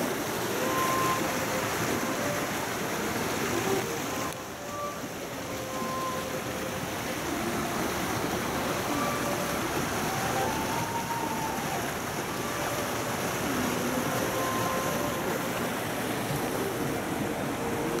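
Steady rushing of a rocky mountain stream, its hiss dropping a little about four seconds in.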